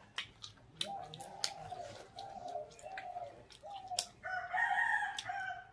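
A chicken calling: a run of short, wavering notes from about a second in, then a longer, louder call near the end. Sharp clicks of biting and chewing on fried chicken come through alongside.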